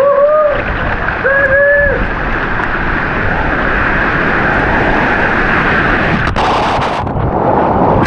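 Rushing whitewater of a river rapid, a loud steady roar of churning water. Two short shouted calls come in the first two seconds, and near the end there is a brief sharp hiss of splashing or water on the microphone.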